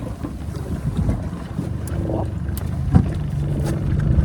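A boat's motor running with a steady low hum that strengthens about halfway through, over wind noise, with a single knock near the end.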